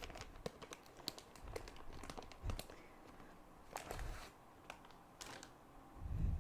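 Crinkling and rustling of a wet wipe being rubbed over a keyboard, with many small crackly clicks, and a dull thump about six seconds in.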